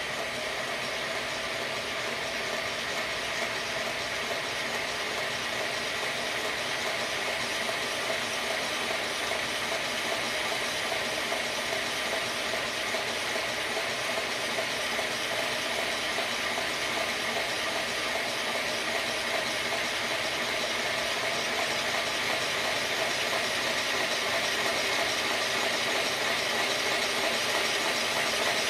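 Bachmann large-scale Emily model locomotive running on roller stands, its electric motor and gearing whirring as the driving wheels spin. It grows slowly louder as the track voltage is turned up from about 10 to 15 volts.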